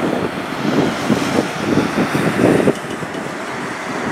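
Rumble of an Airbus A380-800's four Rolls-Royce Trent 900 jet engines as the airliner rolls out on the runway just after touchdown. The rumble eases somewhat about two and a half seconds in.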